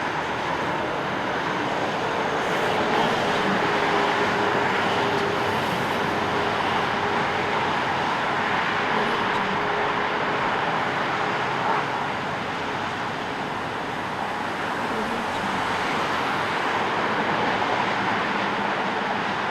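City street traffic: a steady, continuous wash of passing cars and other motor vehicles, engines and tyre noise blended together, with a faint held hum through the first half.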